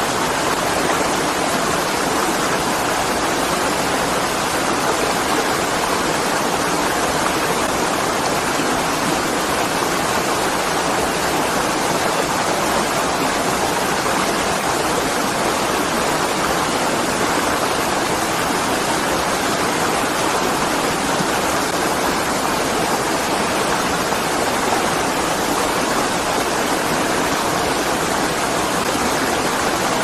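A small waterfall splashing into a rocky stream, with the stream rushing over the rocks: steady, unbroken water noise with no change in level.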